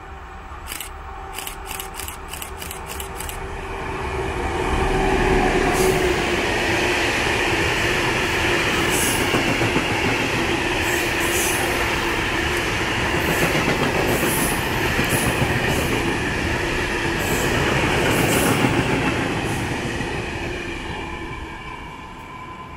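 Freight train of covered hopper wagons, a dolime train, passing close by. Its wheels rumble on the rails with a squealing ring. The sound builds over the first few seconds, stays loud for about fifteen seconds, then fades as the train runs off.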